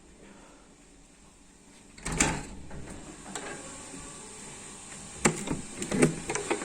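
A few sharp clicks and knocks of something being handled, the first about two seconds in and more near the end, with a steady background hiss that comes up after the first knock.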